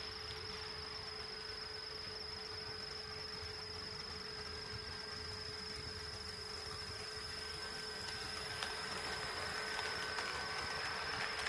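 HO-scale model train running on the layout, its running noise growing louder over the last few seconds with a few faint clicks, over a steady high-pitched whine.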